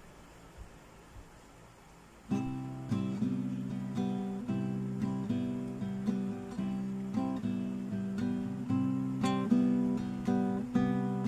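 Background music: an acoustic guitar playing plucked notes, starting about two seconds in after a quiet opening.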